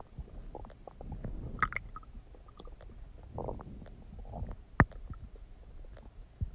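Stomach gurgling: irregular low rumbles and bubbly pops, with one sharp louder pop a little before the five-second mark.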